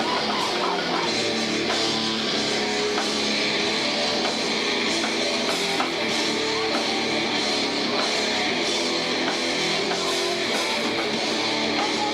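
Live rock band playing a song: guitars and a drum kit, loud and continuous.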